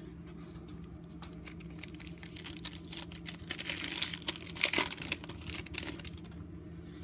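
Foil wrapper of a 2017 Score football card pack being torn open and crinkled, a dense run of crackles loudest about four to five seconds in.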